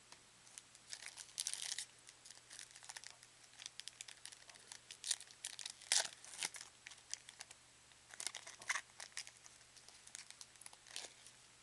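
A plastic trading-card pack wrapper crinkling and tearing as it is ripped open by hand, in irregular crackles and rustles, the loudest near the middle.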